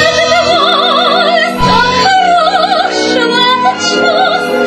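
A soprano singing slow, long-held notes with wide vibrato in an operatic style, over instrumental accompaniment: a sung number from a stage musical.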